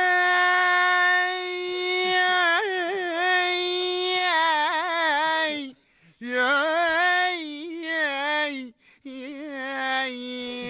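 A man singing without accompaniment, holding long drawn-out notes with wavering, bending ornaments. He sings in three phrases, with short breaks about six and nine seconds in, and the last phrase settles on a lower held note.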